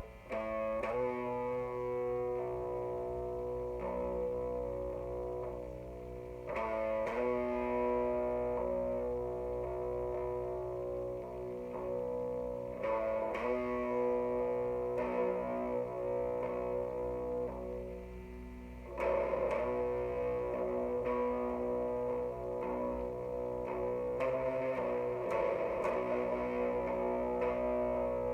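Jackson X Series SCX 3H electric guitar through an Orange Crush Mini 3-watt amp, boosted by a Boss ODB-3 overdrive, playing a slow doom-metal part. Distorted chords ring for several seconds each, with a new one struck about every six seconds.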